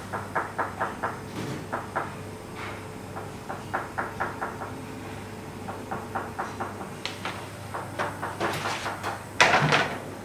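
Quick runs of sharp knocks, about four to five a second, broken by short pauses, with a louder brief clatter near the end.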